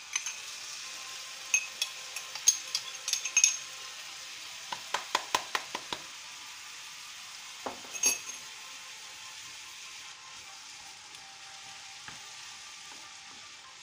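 Diced carrot, onion and pepper in olive oil giving a steady sizzle in a frying pan, while rice is poured in from a glass jar with a run of sharp clicks and taps in the first half and one louder knock about eight seconds in. Later a wooden spatula stirs the rice and vegetables in the pan.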